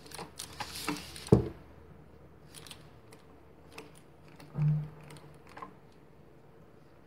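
Thick 6 mm cotton macramé cord rubbing and scraping as it is handled and pulled into knots close to the microphone, with one sharp knock a little over a second in. Scattered small brushing sounds follow, with a short low sound about halfway through.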